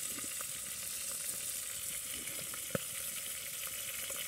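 Chicken drumsticks sizzling in a covered pan over a wood-burning camp stove, about three minutes into frying: a steady high hiss with scattered small pops and one sharper pop about two-thirds of the way in.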